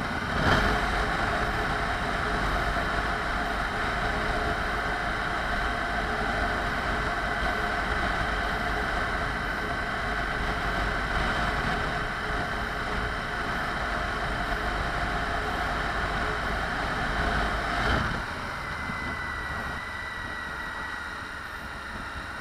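Suzuki V-Strom 1050XT's V-twin engine running at road speed, under steady wind noise. About 18 seconds in it gets quieter and its pitch falls slowly as the bike slows.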